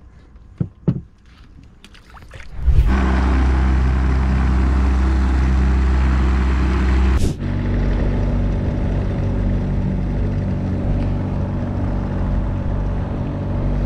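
Two short knocks, then a boat's motor comes in suddenly about three seconds in and runs steadily, a deep even hum with a hiss of wind and water over it, with one brief break about halfway through.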